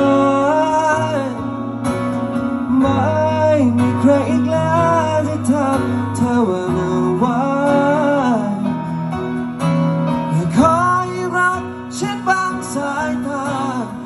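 Live acoustic band playing through stage speakers: a male voice singing a melody over strummed acoustic guitar and keyboard.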